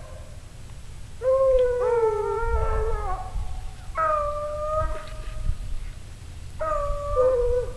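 Dog baying in three long drawn-out howls, the first about a second in and the longest, with more than one voice overlapping, the next around four seconds in and the last near the end. Low wind rumble runs underneath.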